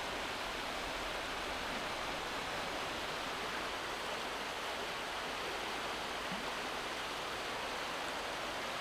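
Steady rushing of a river flowing over rocks and gravel.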